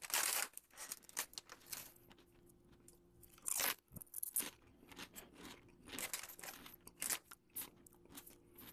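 A person crunching and chewing wavy potato chips with the mouth close to the microphone: irregular crisp crackles, with louder crunches at the start, about three and a half seconds in and about seven seconds in.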